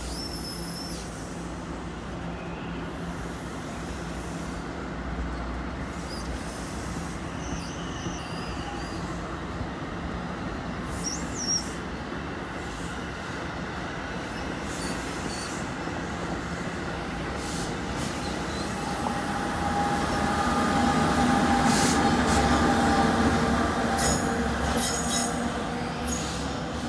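NJ Transit multilevel commuter train hauled by an ALP-46A electric locomotive passing at speed: steady wheel and rail rumble with a few short high wheel squeals. It swells with a steady electric hum as the locomotive goes by, near the end.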